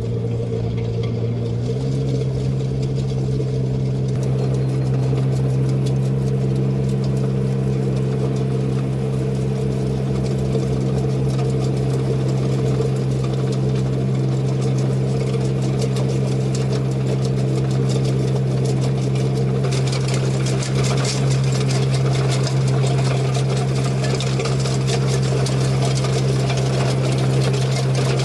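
Engine of a small construction machine running steadily, its pitch stepping up slightly about two seconds in, with more clatter from about twenty seconds on.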